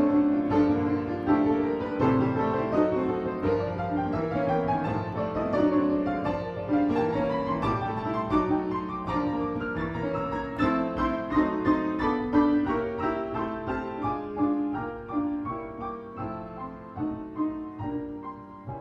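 Solo piano playing, a steady flow of notes and chords mostly in the middle register, growing gradually quieter over the last several seconds.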